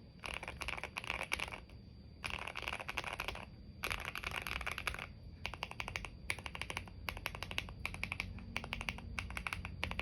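Typing on a Keychron Q1 mechanical keyboard with a polycarbonate plate and lubed, filmed Jwick Black linear switches. It opens with bursts of rapid keystrokes about a second long separated by short pauses, then from about halfway on gives quicker runs of separate clacks.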